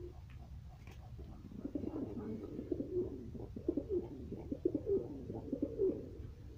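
Domestic pigeons cooing, a dense run of overlapping low coos that starts about a second and a half in and stops near the end.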